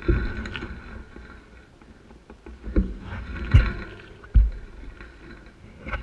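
Low rumble and four heavy thumps on an action camera's microphone, one at the start and three close together in the middle, with a light hiss between them.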